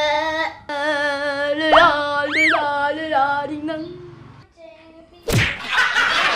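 A child's drawn-out mocking 'weee' taunt, the pitch wobbling, with one quick swoop up and down in the middle; it fades out about four seconds in. After a short pause comes a sudden thump, followed by a rushing noise.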